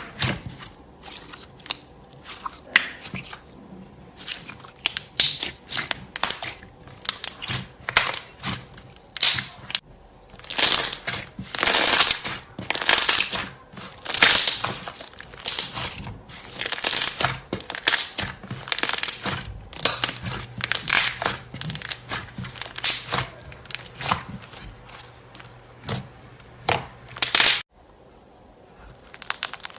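Slime being squeezed and worked by hand, giving a dense run of crackling, crinkly pops and clicks that come in clusters. The sound breaks off suddenly about two seconds before the end.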